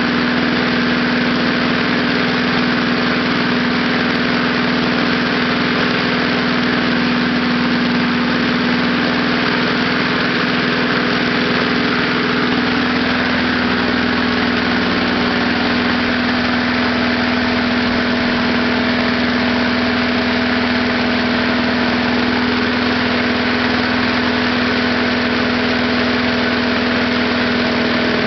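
Small lawnmower engine running steadily at an even speed, fed on gasoline vapour drawn through a wick in a steel ammo box rather than on liquid fuel.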